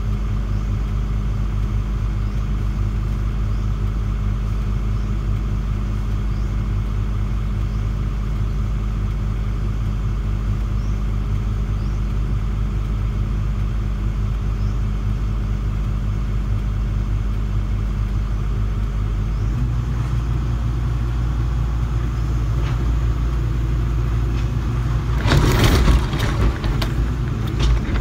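Excavator's diesel engine running steadily, heard from the operator's cab; its note changes about two-thirds of the way through as the machine starts to work. Near the end a burst of loud crackling and knocking breaks in.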